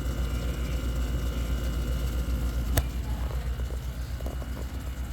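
GE 6,000 BTU window air conditioner running: a steady low hum with faint steady higher tones, and one sharp click almost three seconds in.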